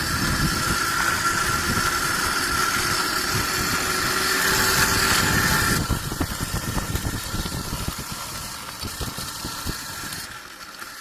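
Electric mini bike riding on its 12-volt DC motor: a steady high motor whine over the uneven rattle and rumble of the chain drive and tyres. The whine cuts off about halfway through and the rattle fades away after it; the rider thinks the bike is dying.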